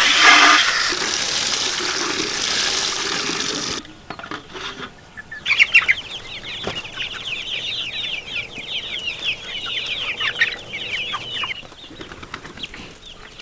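A loud rushing noise for the first few seconds, then a flock of young chickens peeping: a dense chorus of short, high, falling cheeps that dies away a couple of seconds before the end.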